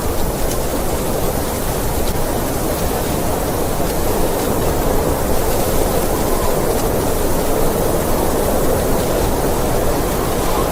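Snowstorm wind blowing steadily, a dense rushing noise heaviest in the low-middle range with a fainter hiss above, swelling slightly now and then.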